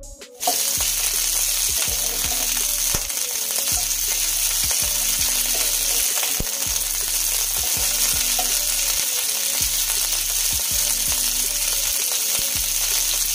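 Broccoli florets sizzling as they fry in hot oil in a nonstick frying pan, with a spatula scraping and knocking against the pan as they are turned. The sizzling starts suddenly about half a second in and then holds steady.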